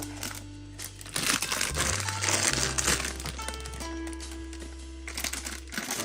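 Plastic packaging crinkling in two spells, about a second in and again near the end, over background music.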